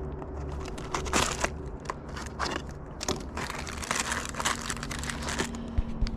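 Plastic packaging crinkling and crackling as it is handled, in irregular bursts with a few louder crackles about a second in.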